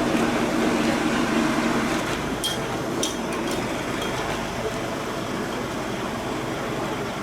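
A vehicle engine running steadily, its hum easing off after about two seconds, with a few sharp metallic clinks a little before the middle.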